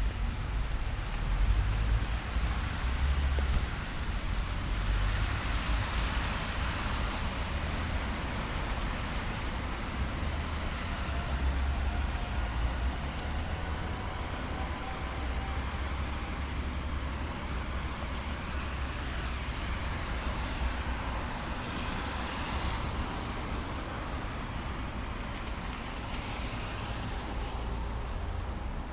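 Traffic on a wet city street in the rain: a steady low rumble of engines, with the hiss of tyres on wet road swelling as cars pass, several times over.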